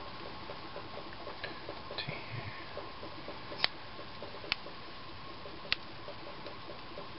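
Digital calipers clicking three times against a small-engine piston as the jaws are closed on it and read, with a soft scrape before. Under it runs a fast, even ticking and a faint steady hum.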